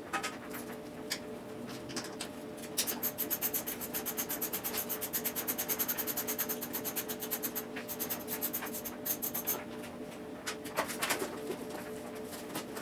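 Ratchet wrench being worked on the motorcycle's fasteners: rapid, evenly spaced clicking that runs for several seconds in the middle, with scattered single clicks and knocks around it, over a steady hum.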